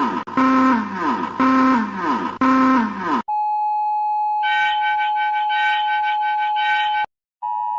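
Synthesized emergency alert sounds of a mock EAS alarm: four falling pitch sweeps about a second apart, then a steady high electronic tone from about three seconds in, joined a second later by a pulsing buzzy layer. It cuts out briefly near the end and comes back as a steady two-tone beep.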